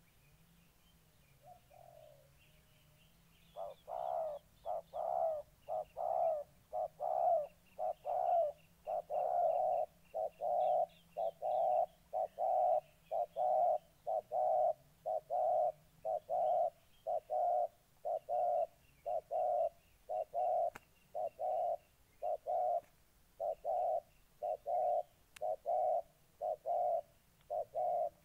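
Spotted dove cooing in a long, rapid run of short, low coos, about one and a half a second, starting a few seconds in, while two doves face each other at a decoy cage. Faint chirps of small birds sound above it.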